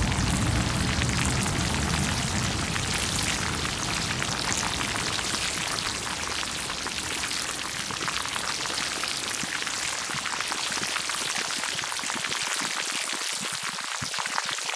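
Dense, steady crackling sizzle, like food frying in hot oil.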